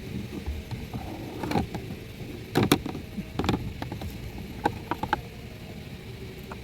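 Plastic steering column cover being fitted by hand: a scatter of short clicks and knocks, the loudest a quick pair about two and a half seconds in.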